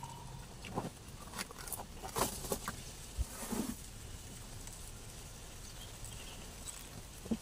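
Eating by hand from a banana leaf, with raw leaves as a side: a few short rustles, clicks and mouth sounds in the first four seconds or so. After that only a faint steady background remains.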